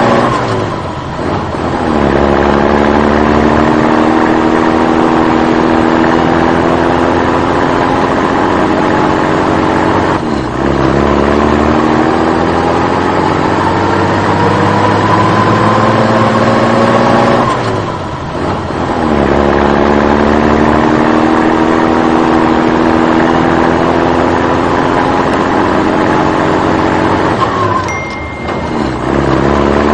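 Vehicle engine rising steadily in pitch for several seconds, dropping briefly, then climbing again; the cycle repeats about every eight seconds, four times.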